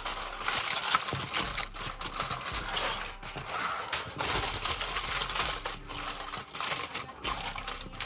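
Irregular crinkling and clicking handling noise, dense and continuous.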